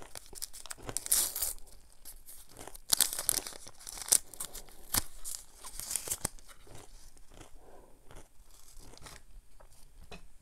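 A small paper wrapper being torn open and crinkled by hand: a string of short, sharp rips and crackles, then softer rustling near the end as the card inside is pulled out.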